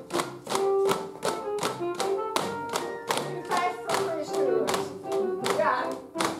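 Music: a tune of short, struck-sounding notes over a steady tapping beat, about three beats a second.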